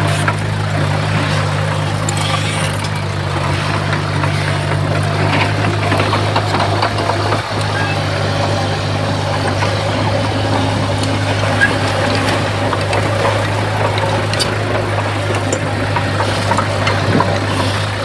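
Heavy diesel earthmoving machinery running steadily, a constant low engine hum with faint scattered clicks.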